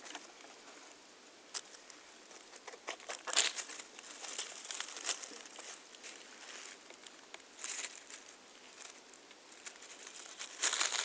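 Close handling noises in dry leaf litter: sporadic crinkling and rustling of dead leaves and a few short crackles and tears as a false morel mushroom is handled and split apart by hand, loudest just before the end.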